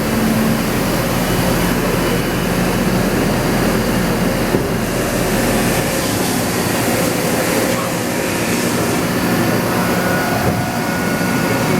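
A Mori Seiki SL-25Y CNC turning center running through a machining cycle: a steady machine hum over even rushing noise. The lowest part of the hum drops away about halfway through.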